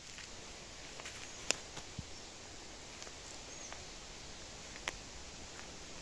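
Footsteps crunching through dry leaf litter on a forest floor, with a few sharp twig snaps, the loudest about a second and a half in. A couple of faint, short, high bird chirps sound in the background.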